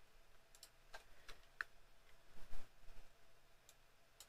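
A few scattered, irregular clicks from a computer mouse and keyboard.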